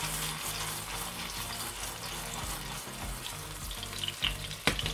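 Hot oil sizzling steadily around a vegetarian patty frying in a small non-stick pan, with a single knock near the end.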